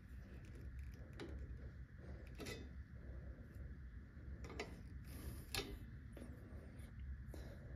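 Faint, irregular metal clicks and ticks of pliers working at the bottom spring of a rear drum brake's shoe assembly, about five light taps spread over several seconds.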